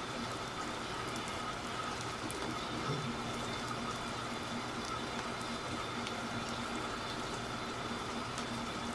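Steady even hiss with a faint steady hum under it, and a soft low thud about three seconds in.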